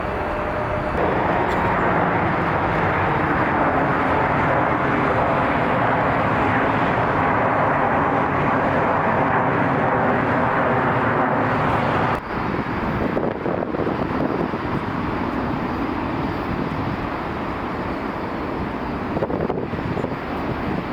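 Boeing 787-9 twin-engine airliner's jet engines at takeoff thrust: a loud, steady rumble and rush. It grows louder about a second in and drops away sharply about twelve seconds in, running on lower and more unevenly after that.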